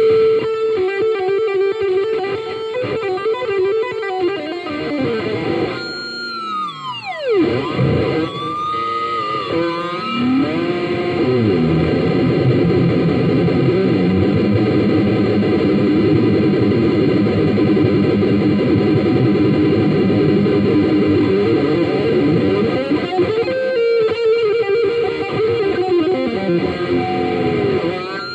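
Electric guitar through a Marshall CODE 50 modelling amp with distortion and effects. Held notes give way to a steep downward pitch sweep about seven seconds in, followed by a long sustained distorted chord with gliding notes near the end.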